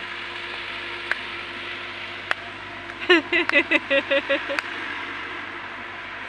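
A child's high voice giving a quick run of repeated syllables about three seconds in, over a steady background hiss, with a few sharp clicks.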